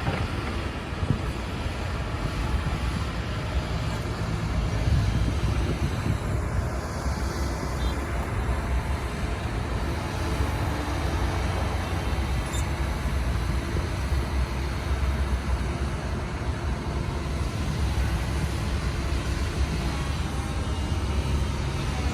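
Doosan DX225LC crawler excavator's diesel engine running steadily, a low drone with a wash of noise over it, as the machine works to climb a slope.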